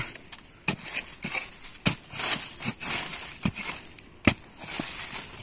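A hand digging tool striking hard ground in several sharp blows, roughly one a second.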